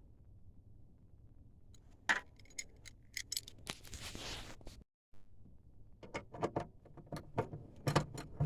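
Small metal parts, a homemade bracket and its bolts, clinking and rattling as they are handled. A short scraping rush comes about four seconds in, and a quick run of sharp clicks and clinks fills the second half.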